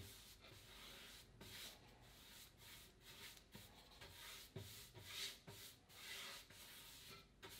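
Faint swishing of a paint-loaded brush stroking across a painted vanity cabinet frame, in irregular strokes about one or two a second.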